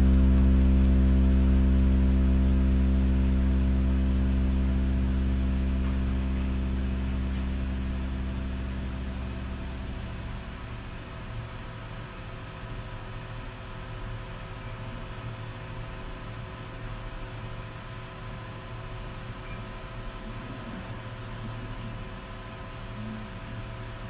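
A held low electronic music drone with a stack of overtones fades out over the first ten seconds. A quieter steady hum with faint high whines from the running dual-extruder 3D printer remains.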